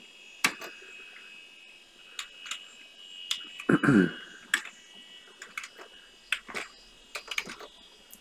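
Keys pressed on a PC keyboard, about a dozen scattered clicks, over the steady high hum of the running computer.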